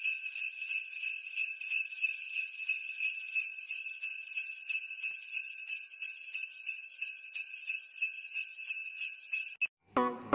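Jingle bells shaken in a quick, even rhythm, high and ringing, then cut off suddenly near the end. Music starts just after.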